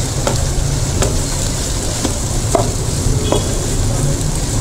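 Wooden spatula stirring and scraping chopped vegetables around a nonstick wok while they sizzle. There are several short scrapes against the pan over a steady low rumble.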